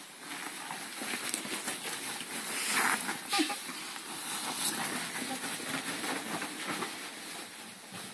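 Ferrets scrambling and burrowing in a bedspread: a continuous fabric rustle full of small scratchy crackles, loudest about three seconds in.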